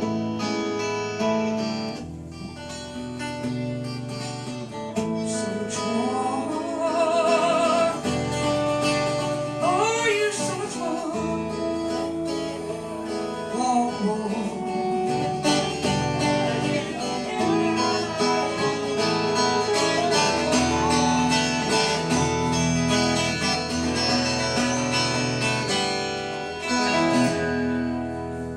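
Acoustic guitar playing a country-style song, with a wavering melody line over the chords.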